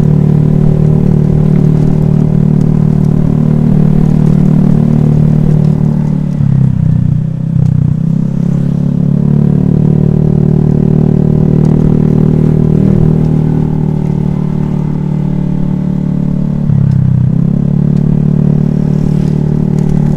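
Honda Vario scooter's single-cylinder engine running steadily while ridden. The engine note drops briefly twice, about six seconds in and again near the end, then picks back up.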